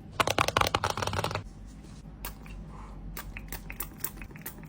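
A damaged glass screen protector being handled and worked off an iPhone: a dense crackle of small clicks lasting about a second, then scattered light ticks.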